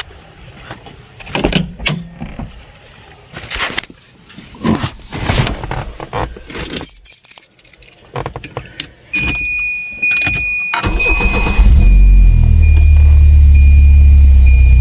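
Keys jangling with clicks and knocks, then a steady high-pitched warning tone comes on. The starter cranks briefly and the 1986 Volvo 745's B230F four-cylinder engine catches about eleven seconds in and settles into a loud, steady idle. This is the first start after the oil pressure switch was replaced.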